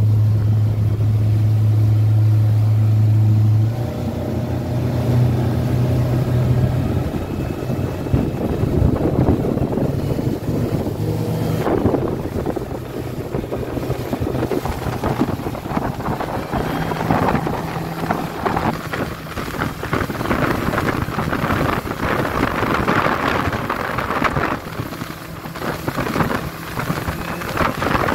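Yamaha 130 hp outboard motor running the boat at speed, with water and wind rushing past. A strong steady hum in the first few seconds drops back about four seconds in, and the rushing, crackling noise of water and wind takes over.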